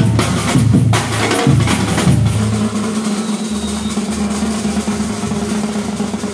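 Music with drums: a few heavy drum hits about a second apart, then a low held note.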